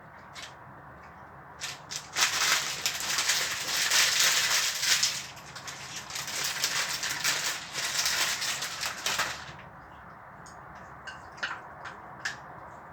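Noodles in soup being slurped and sucked up, a long noisy run full of wet clicks that starts about two seconds in and eases near the end, with a brief dip about halfway. Scattered small mouth clicks before and after.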